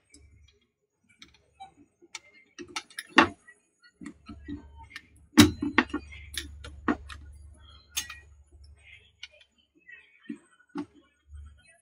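Irregular small clicks and taps of plastic and screws being handled while a CPU-cooler retention bracket is refitted on a motherboard, the loudest a little after three and five seconds in. A faint low hum sits under the middle of it.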